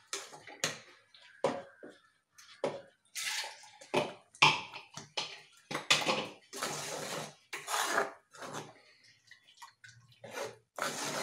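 Wooden-handled ladle stirring a thick, wet coconut-and-curd mixture in an earthen clay pot: irregular squelching, sloshing strokes with the ladle scraping the pot's sides.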